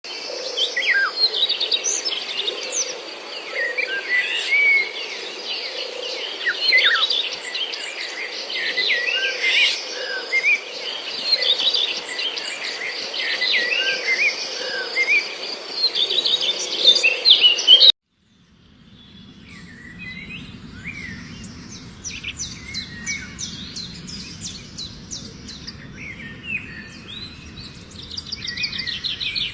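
Many small birds chirping and twittering over a steady hiss, with flowing water murmuring beneath. The sound cuts out abruptly about 18 seconds in and comes back softer, with fewer bird calls over a low steady rush of water and a quick trill near the end.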